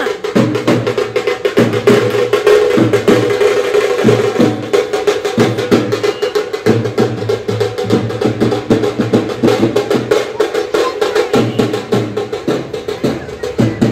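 Dappu frame drums beaten in a fast, loud rhythm, with a steady droning tone running under the strokes.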